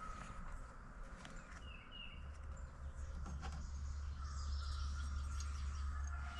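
Quiet work on a scooter's variator: a few faint clicks and taps as parts are handled. A low steady hum comes in about two seconds in, and a couple of short faint chirps can be heard.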